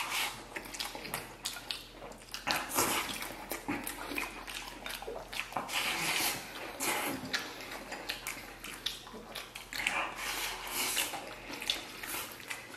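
Close-up eating sounds: rice and braised sauerkraut slurped and shovelled from bowls into the mouth with chopsticks, with wet chewing and short clicks of chopsticks against the bowls.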